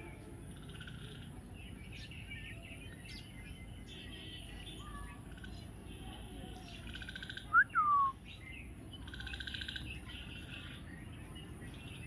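Green parakeet giving soft, buzzy chattering chirps, with two loud sharp calls falling in pitch a little past the middle.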